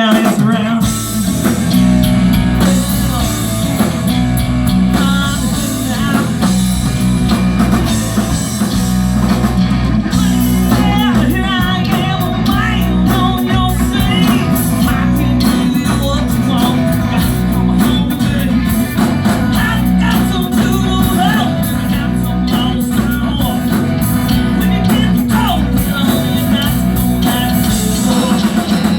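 Live band playing a rock song, with guitar, drums and singing.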